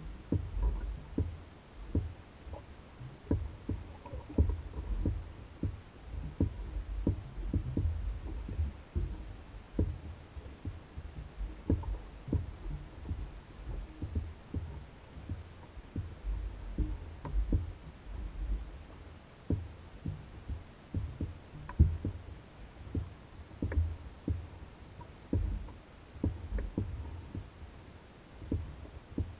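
Small waves slapping and knocking against the hull of an Old Town Guide 119 canoe: irregular low thumps with short knocks, about one or two a second.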